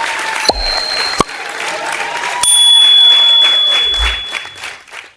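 Applause with two bright bell dings, the first about half a second in and the second about two and a half seconds in, all fading out at the end.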